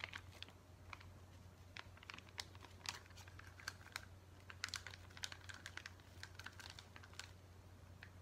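Faint, irregular crinkling and clicking of a plastic soup sachet being squeezed and handled as thick spicy miso soup base is pressed out of it, over a low steady hum.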